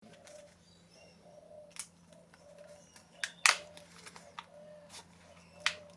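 A few sharp clicks and knocks of metal engine parts being handled, the loudest about three and a half seconds in, over a steady low hum.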